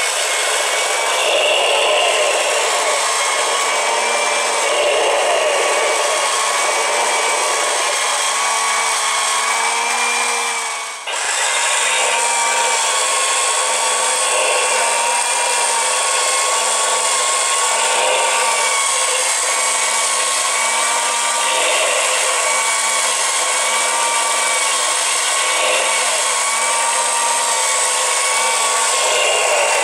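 Motorized 1:4 scale Haynes Porsche flat-six model engine kit running: its small electric motor whirring as it drives the plastic crankshaft, pistons and valves, with a whine that wavers up and down in a slow, regular cycle. The sound drops briefly about a third of the way through, then carries on as before.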